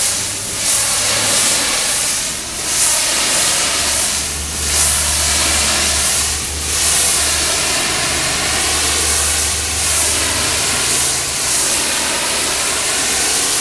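Hot-water pressure washer (steam cleaner) spraying 260-degree water against brick to strip graffiti paint: a loud steady hiss of the spray that dips briefly about every two seconds for the first several seconds. Under it runs the low, steady hum of the machine's engine.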